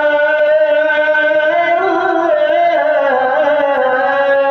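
A male Quran reciter's voice holding one long melodic note in tilawah, drawing out a vowel without a break for breath. Its pitch rises and falls in an ornamental turn about halfway through.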